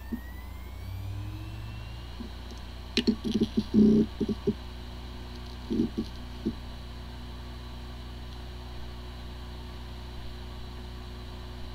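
Hard disk drive with corrupted firmware, running: a rising whine in the first two seconds, a cluster of knocks about three to four seconds in and a couple more near six seconds, then a steady spinning hum. It sounds like a healthy drive, yet the computer cannot detect it, the sign of disk firmware corruption.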